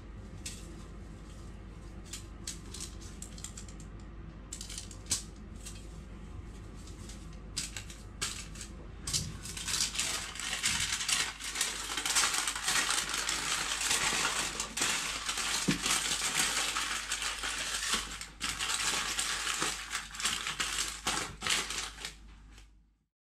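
Paper towel rustling, with light taps, as it is laid over fish fillets. From about nine seconds in, aluminium foil crinkles and crackles loudly as it is rolled and folded around them. The sound cuts off just before the end.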